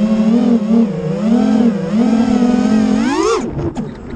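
FPV quadcopter's electric motors whining, the pitch wavering up and down with the throttle as it flies. About three seconds in the whine climbs quickly, then drops away and gets quieter.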